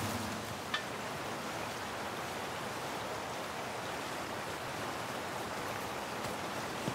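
Steady rush of flowing river water, with a single small click a little under a second in.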